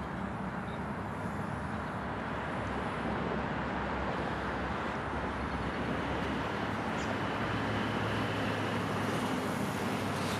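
Steady outdoor noise of road traffic and wind buffeting the microphone, with a faint high steady whine coming in about six seconds in.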